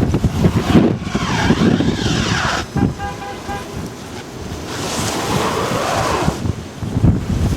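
Blizzard wind buffeting the microphone in gusts, with a car moving through snow on the street. About three seconds in a short steady tone sounds briefly.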